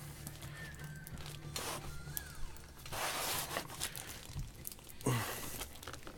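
Wooden cedar cigar-box lid being fitted and pressed down over tobacco wrapped in baking paper: a few short rustling, scraping noises of paper and wood with light knocks, over a low steady hum.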